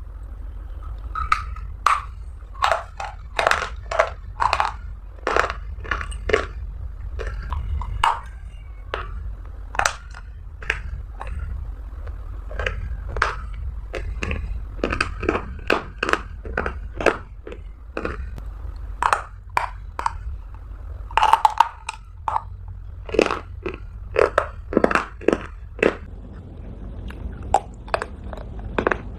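Close-miked bites and chewing of hard, brittle clay, each bite a sharp crunch, coming irregularly about one to two a second over a steady low hum.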